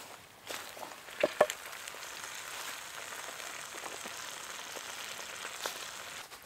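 Roast beef, potatoes and carrots sizzling in hot oil in a cast-iron pan just out of the oven, a steady hiss after two sharp knocks a little over a second in as the pan is set down.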